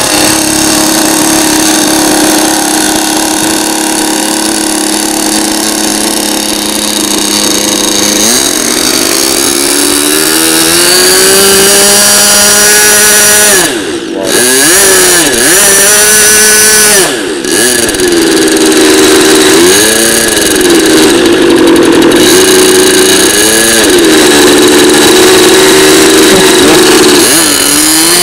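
Engine of a radio-controlled P-51 Mustang model plane running loud and steady, then throttling up with a rising pitch about eight seconds in. In the second half the pitch swoops up and down over and over, and the sound dips sharply twice, as the plane speeds and manoeuvres.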